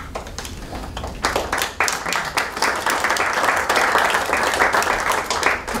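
Audience applauding: scattered claps at first, filling out into steady applause from about a second in.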